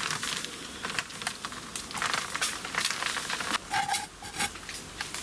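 Footsteps crunching and rustling through dry leaves and undergrowth, an irregular series of crackles.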